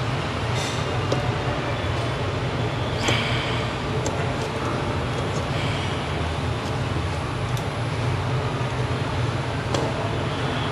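Hot air rework station blowing a steady rush of air onto the board to desolder a small SMD capacitor, with a few light ticks.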